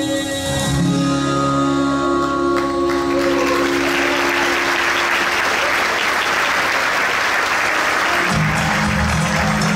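A gospel song ends on a held sung chord with backing music, which fades out within the first few seconds as an audience breaks into steady applause. Near the end a low steady note comes in under the applause.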